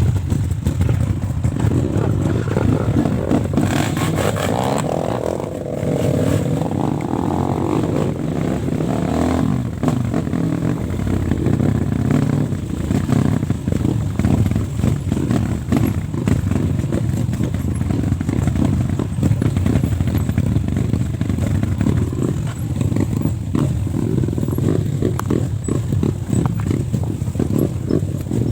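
Off-road trail motorcycle engine running steadily while riding, with a dense low pulsing throttle note and brief dips in level.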